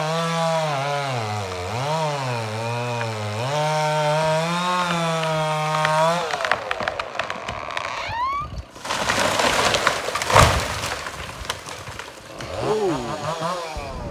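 Chainsaw running at high revs, its pitch dipping and rising as it cuts into a large hazard tree, stopping about six seconds in. Wood then cracks and the tree falls, landing with a crash of breaking wood and branches about ten seconds in.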